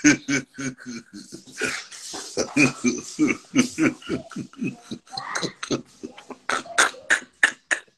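A man laughing hard, in a long run of quick, breathy bursts.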